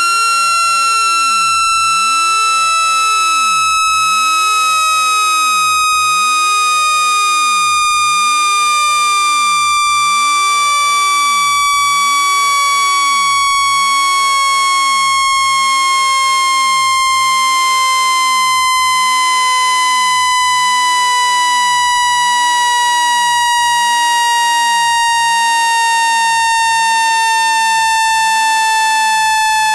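Speaker-cleaning tone: a loud, buzzy electronic tone gliding slowly and steadily downward in pitch, played to shake dust out of a phone speaker grille.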